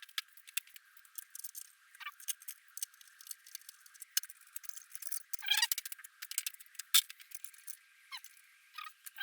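Irregular small metallic clicks, ticks and rattles of hand tools and fasteners as a cover is worked off a motorcycle's front end, with a brief cluster of louder clicks about five and a half seconds in.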